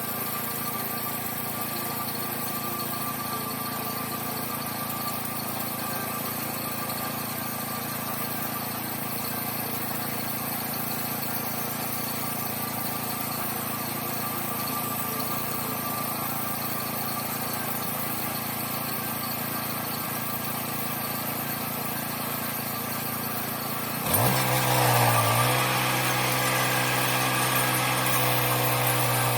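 Homemade sawmill's engine idling steadily, then near the end revved up quickly and held at a higher, louder speed.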